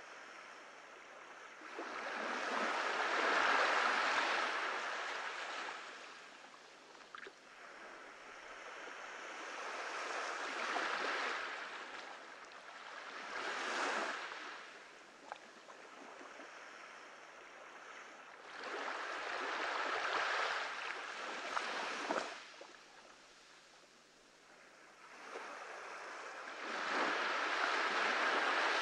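Small waves washing up a beach, the surf rising and falling in slow surges every five to eight seconds.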